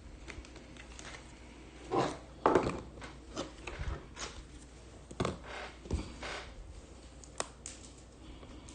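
Hands handling a hobby box and trading card packs on a table: a few soft knocks and thuds, the loudest two about two seconds in, with light rustling between.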